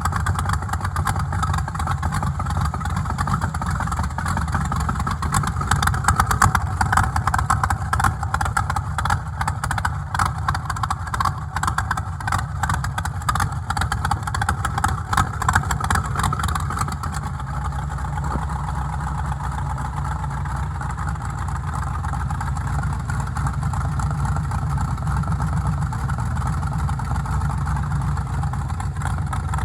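Freshly rebuilt Chevy LS V8 with new cylinder heads running just after its first start. It is louder and more uneven for the first quarter minute, then settles into a steadier idle.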